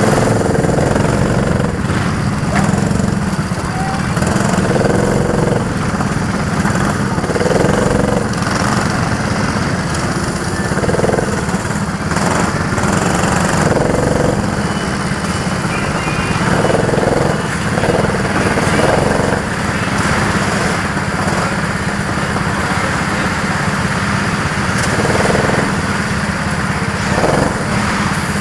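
Go-kart engines running, a steady low drone with repeated short swells every few seconds.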